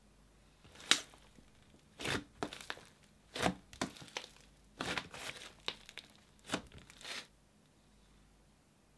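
Thick, stretchy slime being stretched, folded and pressed by hand, giving about ten short, sharp crackles and pops in irregular clusters. They stop a little after seven seconds in.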